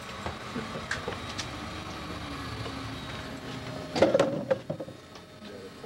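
Mini Cooper S engine running at idle. About four seconds in comes a short cluster of loud knocks and clatter, and the low engine sound then drops away.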